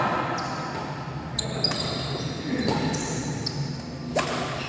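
Badminton rally in a reverberant sports hall: sharp racket-on-shuttlecock hits, the loudest a hard hit about four seconds in, with short high squeaks of shoes on the court floor.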